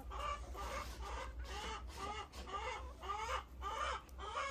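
Hens clucking, a steady string of short, arched calls about two a second.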